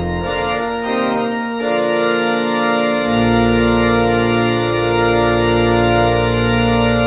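1966 Wicks pipe organ playing the closing chords of a toccata: a few quick chord changes, then a full chord held, with a deep pedal bass note coming in about three seconds in.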